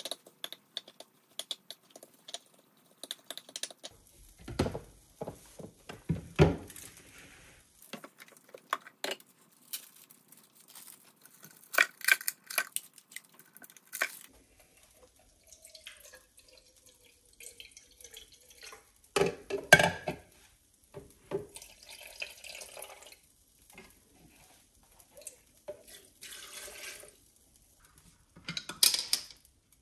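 Kitchen sink sounds: tap water running in short spells and dripping, with dishes and utensils knocking and clattering, and several louder knocks.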